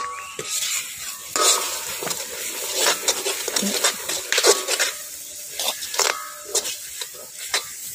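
Metal ladle repeatedly scraping and knocking against a wok (kadai) as a thick onion-tomato masala is stirred, with the paste sizzling as it fries. The curry masala powder has just gone in and is being stirred through.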